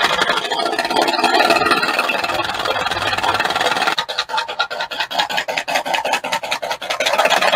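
Haven Knocker home-made engine-sound generator running: a small electric motor shakes a tin can holding eight steel balls, its lid held down by an elastic band, giving a continuous metallic rattle. About four seconds in, as the speed knob is turned, the rattle eases into rapid, evenly spaced knocks, then builds again near the end.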